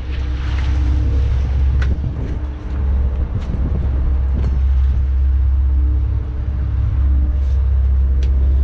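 A fishing boat's inboard diesel engine running, a steady low drone heard from inside the cabin, with a few light clicks and knocks.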